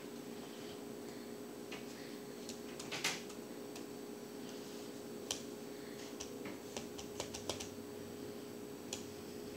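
A dog's paw pressing keys on a ThinkPad laptop keyboard, giving scattered, irregular key clicks. The loudest comes about three seconds in, and a run of several more follows over the next few seconds.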